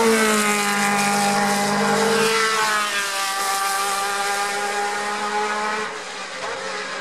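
A racing car engine at high revs passes by, its note dropping in pitch as it goes past. A couple of seconds in, another engine note rises and falls, then fades away toward the end.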